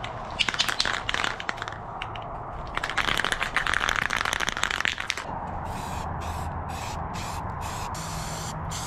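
Aerosol can of self-etching primer being shaken, its mixing ball rattling, for about five seconds. Then it is sprayed in a run of short hisses with brief breaks between them.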